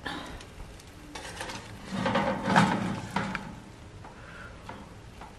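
Tongs flipping burger patties on a foil-lined air fryer tray: scattered clicks and scrapes against the tray and foil, busiest about two to three seconds in.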